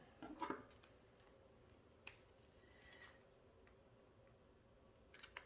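Near silence broken by faint clicks of scissors and a small cardboard box being handled and cut, with a few sharper clicks together near the end.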